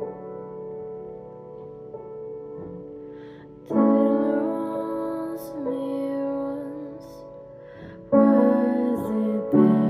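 Slow instrumental music with held chords, a louder chord struck about four seconds in and another about eight seconds in.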